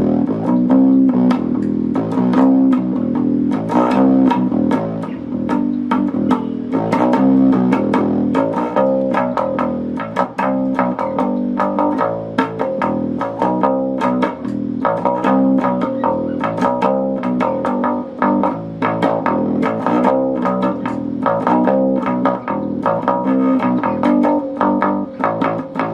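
Electric bass guitar played through an Epiphone Studio 15B bass combo amp, plugged into the amp's high input jack with master volume at 5 and EQ at 4: a continuous run of plucked notes.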